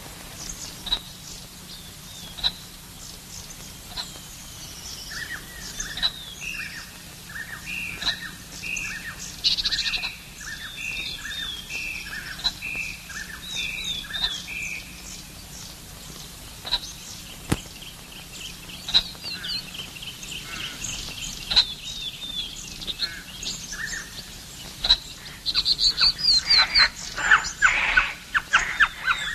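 Birds chirping and calling, several at once. A run of short repeated notes, a little more than one a second, lasts about ten seconds midway, and the chirping grows dense near the end.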